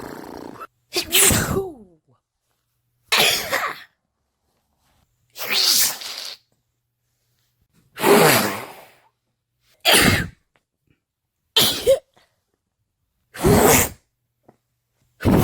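A woman sneezing, about seven separate sneezes with short silences between them, each a brief sharp burst: hay fever sneezes.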